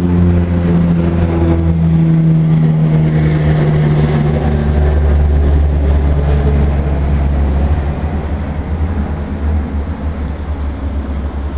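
A motor vehicle's engine running nearby: a steady low hum that slowly drops in pitch and grows fainter after about eight seconds.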